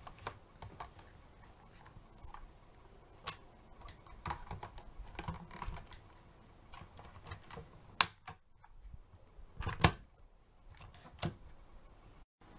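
Plastic toy front-loader garbage truck being handled: its lift arms and forks click and clack, with scattered light knocks and two sharper knocks about eight and ten seconds in.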